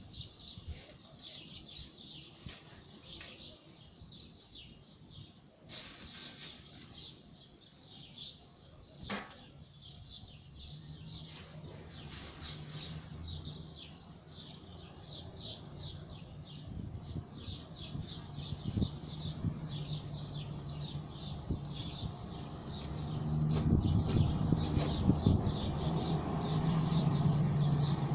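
Many small birds chirping busily in the garden trees, rapid high chirps that keep going throughout. Under them a low steady hum builds from about a third of the way in and grows loudest near the end.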